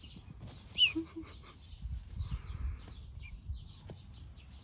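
A swan cygnet gives one loud, sharp high peep about a second in, while small birds chirp faintly and steadily. Low rustling in the middle.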